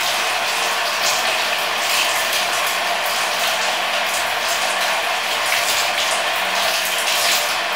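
Water from a handheld shower hose running steadily and splashing onto a dog and the tiled shower floor as the dog is rinsed.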